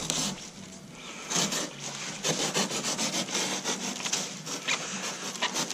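Knife blade slicing through a corrugated cardboard refrigerator box. From about a second in it makes a quick run of short scraping strokes as the blade is drawn down the box edge.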